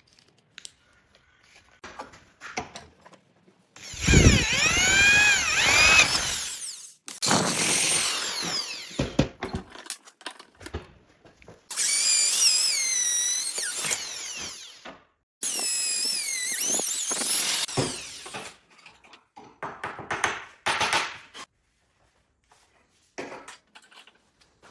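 A handheld power tool run in four bursts of a few seconds each, its whine sweeping up and down in pitch as it works the steel, with clicks and knocks of handling between the bursts.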